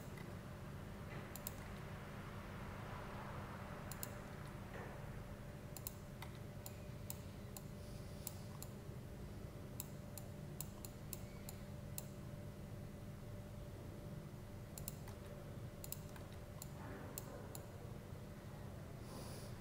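Computer mouse clicking, irregular single clicks and quick runs of two or three, over a steady low hum.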